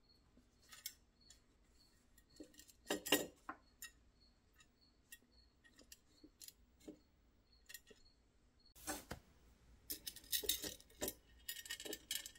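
Small steel chain clinking and jangling against a sheet-metal toy dragline bucket as it is hooked on by hand. The sound comes as scattered light clicks, a louder cluster about three seconds in, and a busier jangle in the last few seconds.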